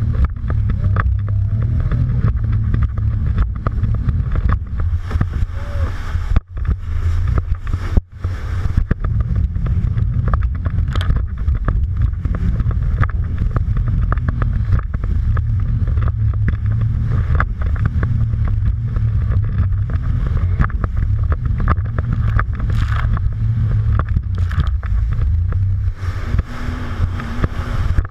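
Jet ski running at speed over choppy water. The engine and the hull's water noise are mixed with heavy wind rumble on the microphone. The sound dips sharply for a moment twice, about six and a half and eight seconds in.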